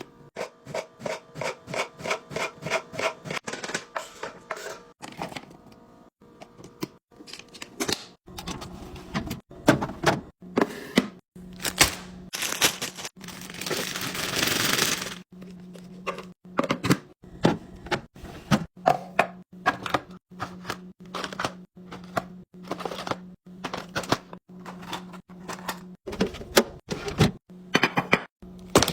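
Food containers and packages being handled and set down: a steady stream of clicks, knocks and taps, a quick even run of taps at the start, and a few seconds of rustling around the middle. A steady low hum joins about a third of the way in.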